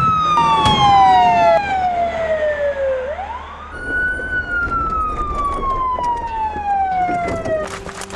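Police siren wailing: a slow falling sweep, a quick rise about three seconds in, then another slow fall that fades out near the end. Several sharp cracks sound in the first two seconds.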